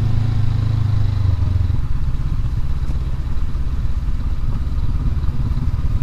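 2019 Honda CB500X's parallel-twin engine running as the motorcycle rides a loose gravel trail. The steady engine note drops away about two seconds in.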